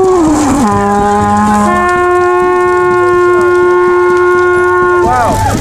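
Long, horn-like held notes: a tone that drops in pitch during the first second, then a steady lower note held for about three seconds, which breaks off about five seconds in.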